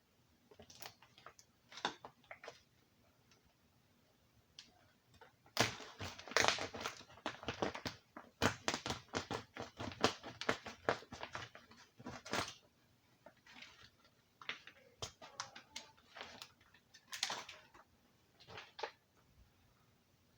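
A hand cutter working through ceiling material to open a hole for an electrical box. A few scattered clicks come first, then a dense run of rapid scraping strokes about six seconds in, lasting several seconds, then intermittent strokes.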